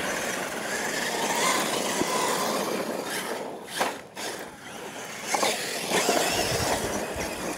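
Radio-controlled monster trucks racing across a loose dirt track: a steady, loud rush of motors and tyres churning dirt and gravel, with a few sharp knocks near the middle.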